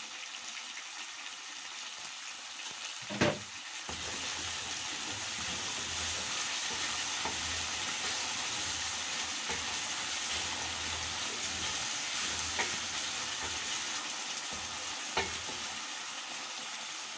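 Onions, tomatoes and capsicum sizzling in hot oil in a saucepan as salt goes in. A sharp knock about three seconds in, after which the sizzling gets louder, with a few light clicks later.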